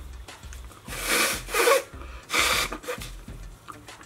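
A man breathing hard in a few loud, hissing breaths, pained by the burn of a super-hot chili pepper chip.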